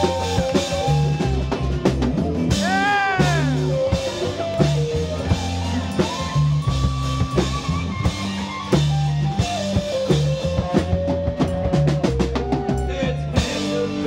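Live band playing an instrumental passage: upright bass, drum kit and electric guitar, with a lead line that bends up and down in pitch.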